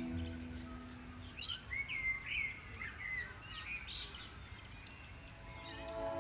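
Small birds chirping in a scatter of short, quick calls. A held music note fades out in the first second, and music starts again just before the end.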